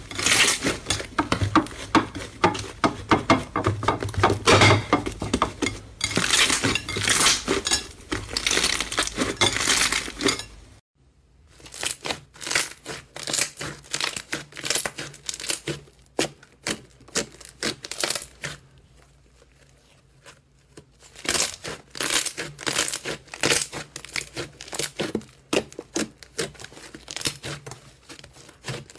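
Slime being squeezed and pressed by hand, making rapid crackling and popping. About eleven seconds in it cuts to a sparser crackle, which eases off for a few seconds before picking up again.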